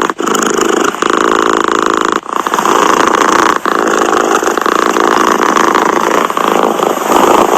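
Domestic cat purring close to the microphone: a steady, rapid vibrating rumble with a short break every couple of seconds at each change of breath.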